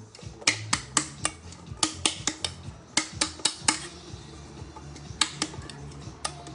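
Kitchenware clicking and clinking in quick runs of three to five sharp knocks, as chocolate cake batter is poured from a bowl into a round cake pan. Faint music plays underneath.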